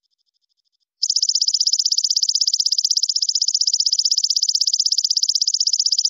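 Belalang kecek (Indonesian singing insect) calling: a loud, rapid, evenly pulsed high trill that starts abruptly about a second in, over a faint call of the same rhythm.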